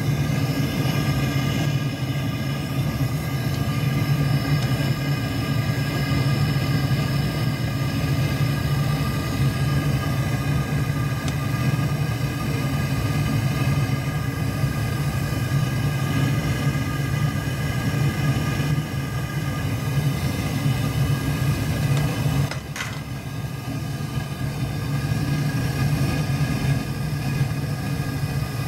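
Amal gas burner on a home-made forge running hard with a steady, low rushing sound, the forge well past its target at about 1,080 °C. About two-thirds of the way through there is a click, and the sound drops a little for a few seconds before building back up.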